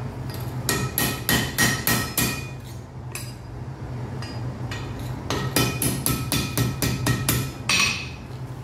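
Blacksmith's hammer striking iron on an anvil in two quick runs of blows, about three to four a second, each blow followed by a short metallic ring. A steady low hum runs underneath.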